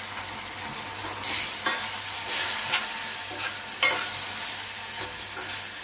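Onion-tomato masala sizzling in a hot stainless steel kadai, with a little water just added so it does not burn. The hiss grows louder about a second in, while a steel spoon stirs it, clicking against the pan a few times.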